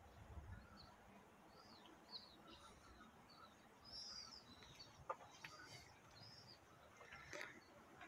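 Near silence with faint bird chirps: short high calls repeated about every second. A single sharp click about five seconds in.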